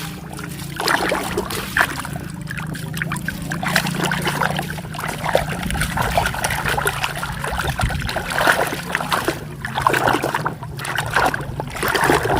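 Water trickling and splashing over a muddy toy vehicle as it is washed clean, with a steady low hum underneath for most of it.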